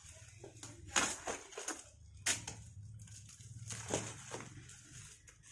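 Cardboard box being torn open by hand, with tearing and crackling of cardboard and packing tape; the sharpest rips come about one, two and four seconds in.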